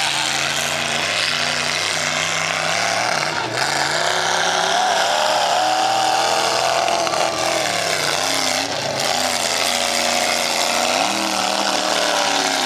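Lifted mud-bog trucks' engines revving hard as they plough through a mud pit, the engine note rising and falling repeatedly with the throttle.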